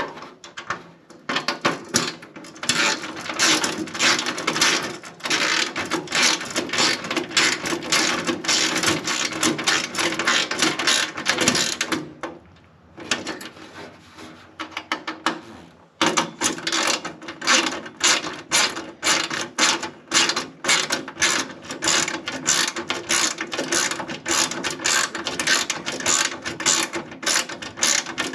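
Ratchet wrench clicking in long rapid runs as a bolt is turned, with a brief pause about twelve seconds in.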